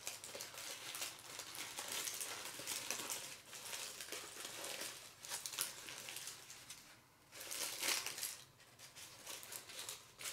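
Packaging wrap around a statue piece crinkling and rustling as it is handled and unwrapped, in uneven bursts, with a louder burst about eight seconds in.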